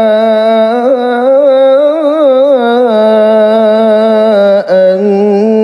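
A male qari's solo melodic Quran recitation (tilawah), one sustained ornamented vowel with wavering trills, a brief break about three-quarters of the way through, then a steady held note.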